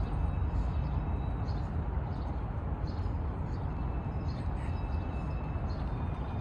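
Steady low rumble, with faint short high chirps of birds scattered through it.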